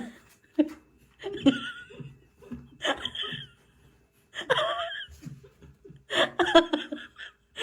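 A person laughing hard in repeated high-pitched bursts, several fits of laughter one after another.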